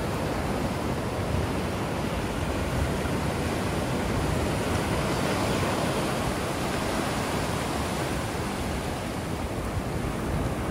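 Ocean surf breaking and washing up a beach: a steady rushing hiss that swells for a few seconds around the middle, with wind rumbling on the microphone underneath.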